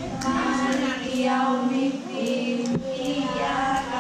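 Young children singing together in a group, with women's voices singing along, in held melodic notes.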